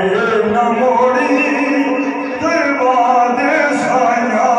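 A man singing a naat, an Urdu devotional poem in praise of the Prophet, into a microphone, drawing out long, bending notes.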